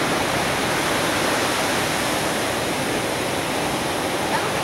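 Ocean surf breaking on a beach: a steady, even wash of waves, big swell over five feet thrown up by a distant hurricane.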